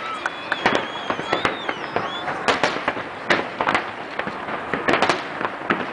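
Fireworks display: a fast, irregular run of bangs and crackling pops, one after another, several each second.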